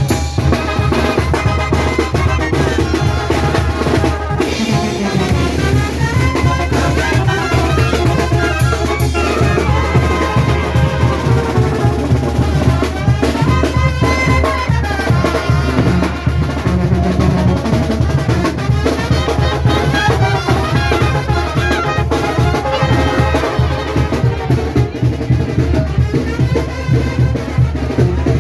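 A Mexican brass banda playing live: brass carrying the tune over a steady drum beat with snare rolls.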